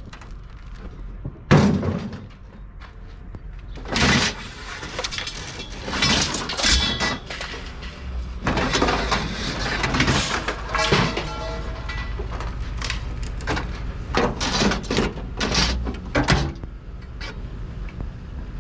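Scrap metal clanking and thudding as pieces are handled and knocked together on a load: a string of irregular sharp hits, the loudest about a second and a half in.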